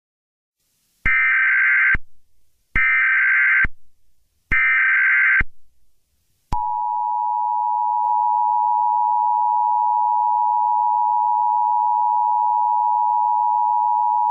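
Emergency Alert System tones: three short bursts of the SAME header's data warble, about a second each, then the two-tone EAS attention signal held steadily for about eight seconds.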